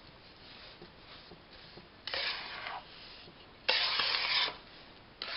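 A spoon scraping and stirring a dry, crumbly besan-and-sugar ladoo mixture in a metal kadhai, in three gritty rasping strokes: one about two seconds in, a longer one near four seconds, and another near the end.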